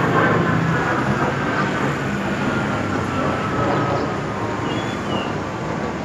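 A motor's drone with its pitch slowly falling, over a steady noisy background.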